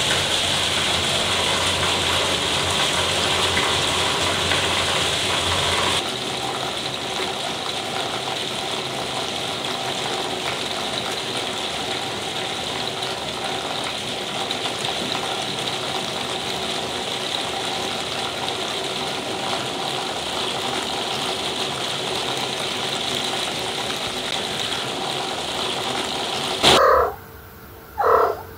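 Steady hiss of rain, dropping slightly in level about six seconds in. Near the end it cuts off and two short pitched sounds follow.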